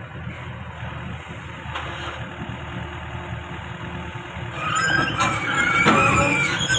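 Backhoe's diesel engine running steadily. About two-thirds of the way in, a wavering high squeal rises over it for a second or two.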